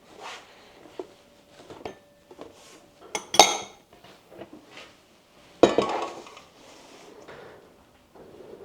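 Kitchen utensils and dishes clinking and knocking as food is handled. The loudest clatters come about three and a half seconds in and again a little before six seconds, each ringing briefly.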